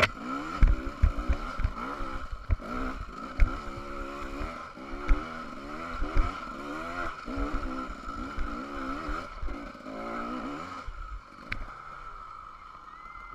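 KTM 300 two-stroke dirt bike engine revving up and down over and over while riding a bumpy dirt trail, with knocks from the track. It eases off and goes quieter about eleven seconds in.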